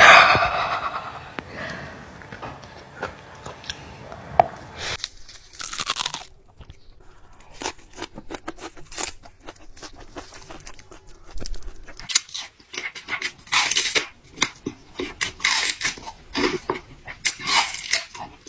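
Close-up crunching and chewing of fresh lettuce wraps: a loud crisp bite at the start, then irregular crunches and chewing that grow denser near the end.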